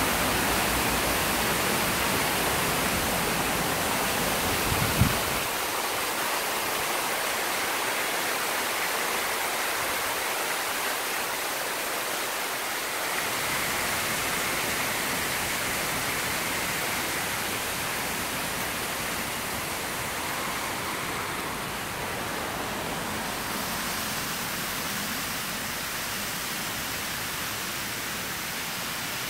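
Steady rushing noise of a waterfall's falling water. A low rumble under it stops with a single knock about five seconds in.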